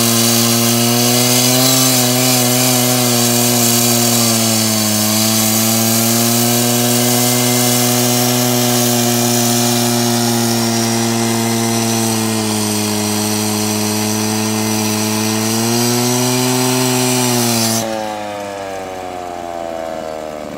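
Handheld electric power cutter grinding through a prestressed spun-concrete pile, its motor pitch sagging as the blade bites under load. About 18 seconds in the grinding stops and the motor's pitch falls as it winds down.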